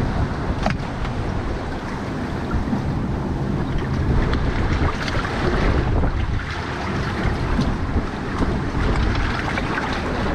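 Seawater surging and sloshing through a narrow gap between boulders, with wind buffeting the microphone in a steady low rumble.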